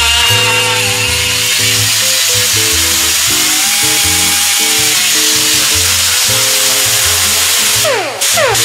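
Pneumatic cut-off wheel grinding down a welded steel body seam, a steady grinding hiss with a whine from the tool. Near the end it stops for a moment, then spins back up with a rising whine.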